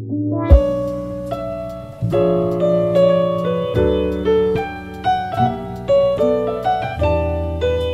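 Background music: a piano melody over a bass line, with one deep thump about half a second in.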